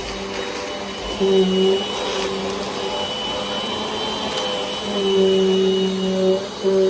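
Bissell compact vacuum cleaner running, a steady motor hum with a high whine. The hum grows louder about five seconds in and dips briefly near the end, with a few faint clicks of debris being picked up.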